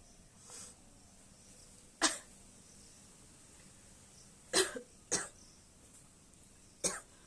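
A woman giving short, single forced coughs: five in all, the first faint, two close together about two-thirds of the way through. They are deliberate coughs for a coughing challenge, not the sound of illness.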